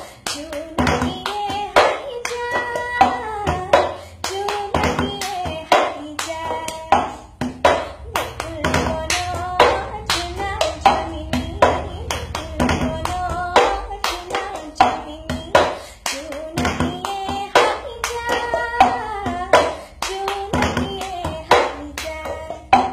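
A woman singing unaccompanied while keeping a steady rhythm with quick hand claps.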